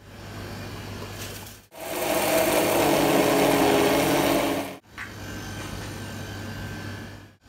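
Electric countertop blender running steadily for about three seconds, blending ice cream into a drink; it starts and stops abruptly. Before and after it, a quieter steady hum.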